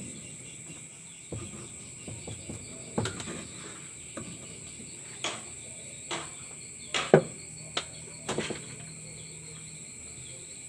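Steady high insect trilling in the background, with a few scattered short knocks and clicks, the sharpest about seven seconds in.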